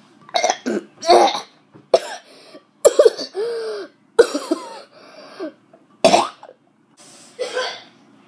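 A boy coughing and clearing his throat in about eight short, sharp bursts, his mouth burning from a spicy hot pickle he has just eaten.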